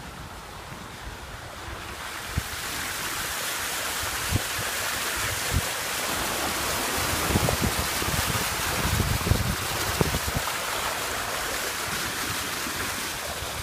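Car tyres hissing and splashing through standing floodwater on the road, the rush of water growing louder about two seconds in. Wind buffets the microphone in low thumps.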